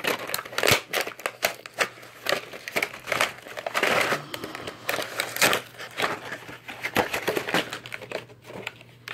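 Clear plastic blister packaging of an action figure crinkling and crackling in a rapid, irregular run of sharp clicks as hands flex it and pull it away from its cardboard backing card, loudest about four seconds in.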